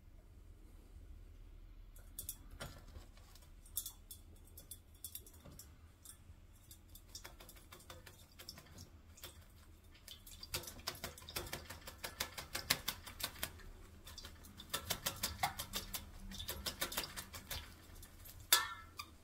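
Kakariki bathing in a steel water bowl: rapid splashing and flicking of water, with drops pattering around. The splashing comes in scattered bursts at first and dense fast flurries through the second half, with one sharper, louder splash near the end.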